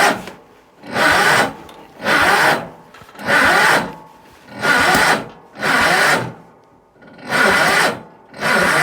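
A small cold engine being cranked in about eight short bursts, roughly one a second, without catching; the engine will not fire in the cold.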